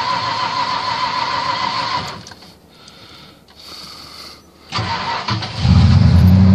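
A steady warbling hum stops about two seconds in, and after a short quiet gap the 1990 Ford F-150's fuel-injected 302 (5.0 L) V8 cranks briefly and fires. It settles into a loud, steady idle through the straight-piped exhaust with an empty catalytic converter.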